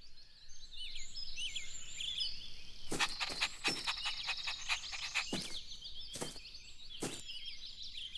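Small birds chirping and twittering throughout as garden ambience, with several short sharp clicks in the second half.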